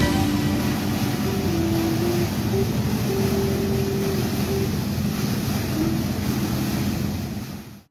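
Water fountain jets splashing, with wind noise on the microphone; the sound fades out near the end.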